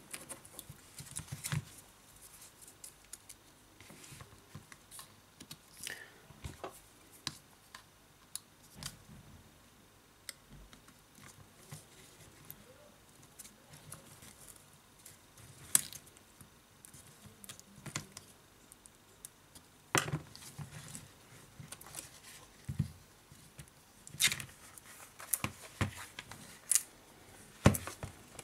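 Scattered small clicks, taps and handling sounds of hands and a small tool working on a tablet's internals as the display flex cable is pressed into its connector and the panel is handled. There are several sharper knocks in the second half.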